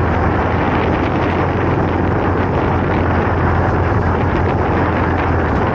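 Motorcycle riding at a steady pace: dense wind rush buffeting the microphone over a steady low engine hum.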